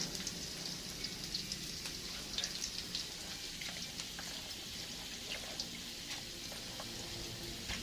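Spice paste (bumbu) sizzling and crackling as it fries, being cooked until fragrant. It is a steady hiss with many small pops throughout.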